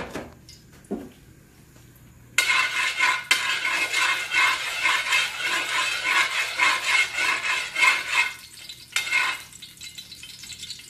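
A metal spatula scraping and stirring around the inside of a wok of hot cooking oil, ringing the pan. It starts suddenly about two seconds in, runs for about six seconds and stops, with one more short scrape near the end.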